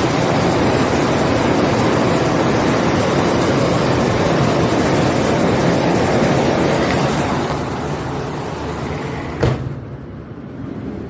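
Flash-flood torrent of muddy water rushing past, a loud, steady, dense rush. It eases toward the end, with a single sharp knock about nine and a half seconds in and a much quieter stretch after it.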